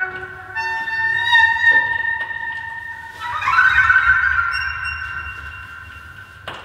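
Solo violin playing long, slow bowed notes: a new note comes in about half a second in, and another swells in around three seconds in and then slowly fades away.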